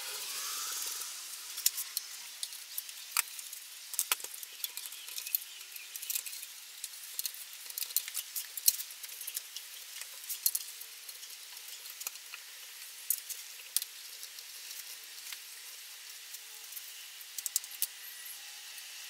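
Clamps being handled and fitted onto a glued cabinet door: irregular clicks, clinks and knocks from steel screw clamps and a one-handed quick clamp being picked up, set against the wood and tightened, with a brief rubbing sound near the start.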